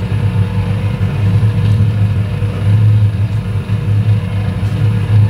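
Continuous low rumble of motorway traffic crossing a high road bridge, swelling and easing a little as vehicles pass.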